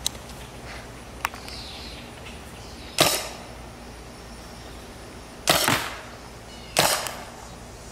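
Paintball gun firing three times, each shot a sharp pop with a short hiss of air trailing off, about two and a half seconds apart and then a second and a half apart. Two small clicks come before the first shot.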